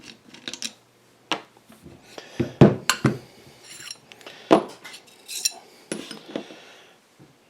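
Steel lead screw parts clinking and knocking against each other as they are handled and set down: a string of sharp metallic clinks, a few with a brief ringing tail.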